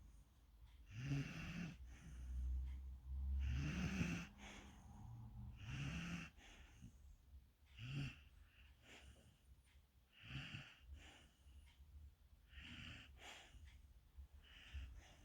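Young golden retriever puppy snoring in its sleep: a snoring breath about every two seconds, the early ones louder with a rising note, the later ones fainter.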